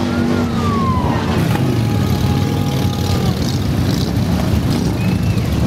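Dense, continuous low rumble of a large group of Harley-Davidson V-twin motorcycles riding slowly past together.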